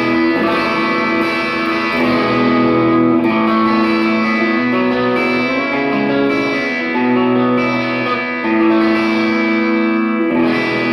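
1996 Ibanez Talman electric guitar on its Lambertone Grinder bridge humbucker, playing a clean tone through a Kemper amp profile with a compressor, ringing chords that change about once a second.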